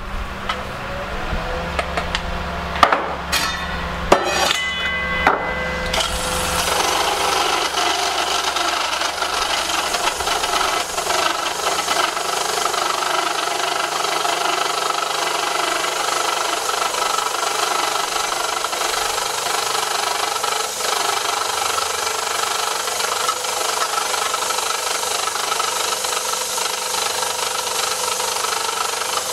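A small electric benchtop grinding mill grinding graphite ore for a second pass, crushing the grit finer while the graphite flakes survive. At first there is only a low motor hum with a few knocks and clinks. About six seconds in, a steady, loud grinding starts as the ore feeds through and runs on.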